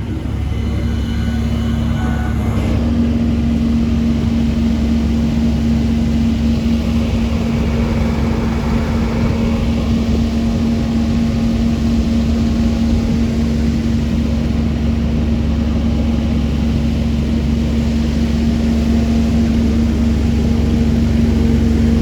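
Engine running steadily: a constant low rumble with a steady hum that grows stronger about three seconds in.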